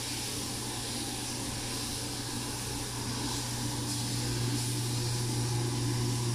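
Steady low drone of a kitchen extractor hood fan, with the hiss of anticucho skewers sizzling on a charcoal grill.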